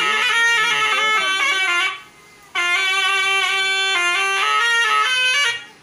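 Serunai, the Malay double-reed oboe, playing a reedy, nasal melody in two phrases, broken by a short pause about two seconds in.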